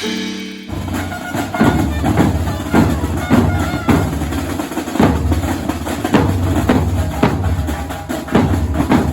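A group of drums playing in a steady rhythm, starting just under a second in. A heavy beat lands about once a second with quicker, lighter strokes between.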